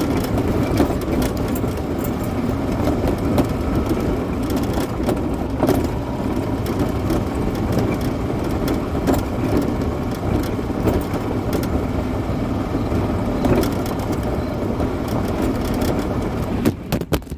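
Yamaha golf cart driving over a gravel lane: a steady rumble of tyres crunching gravel, with constant small crackles and rattles. Near the end a few sharp knocks as the phone recording it falls.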